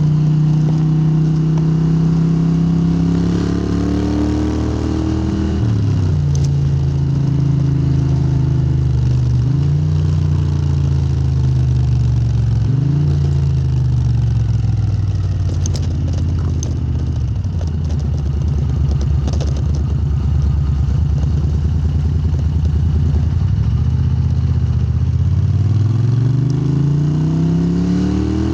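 Moto Guzzi 90-degree V-twin through Lafranconi silencers, revving up and falling back several times, with a steadier stretch past the middle and a long climb in revs near the end.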